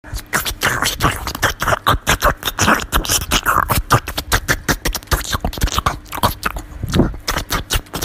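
White Pomeranian puppy eating a slice of watermelon: loud chewing with quick, irregular crunches and mouth smacks, several a second.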